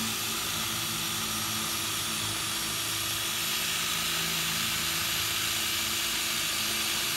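Power drill running steadily, boring a hole for a lag bolt into a wooden 4x4 deck post.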